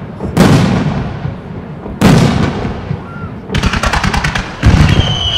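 Fireworks going off. Heavy booms of shell bursts come about half a second and two seconds in. About three and a half seconds in comes a rapid string of sharp cracks, then another heavy boom, followed by a high whistle that slowly falls in pitch.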